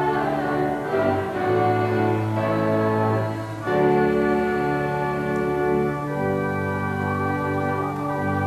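Church organ playing a postlude after the benediction: full held chords over a moving bass line, the harmony shifting to a new chord about three and a half seconds in.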